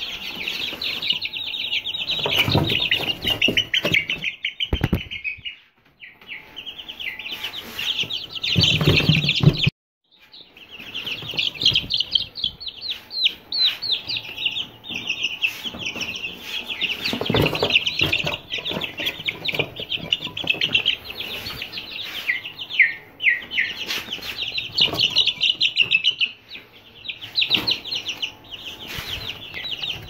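A group of Aseel chicks peeping continuously in a dense chorus of rapid, high cheeps, with low thumps every so often. The sound drops out for a moment about ten seconds in.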